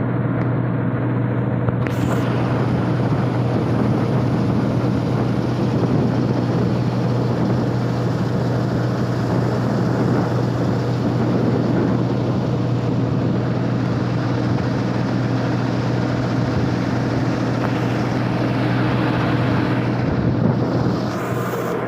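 Rice combine harvester engine running steadily, a constant low hum under a broad mechanical noise, slightly quieter near the end.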